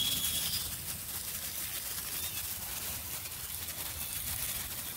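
Steady hiss of water rushing through a just-opened garden hose spigot into a buried PVC irrigation line, with a thin whistle that dies away about half a second in.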